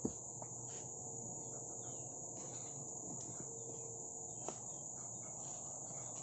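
Insects shrilling in a steady high-pitched drone, with faint bird chirps and two sharp clicks, one at the very start and one about four and a half seconds in.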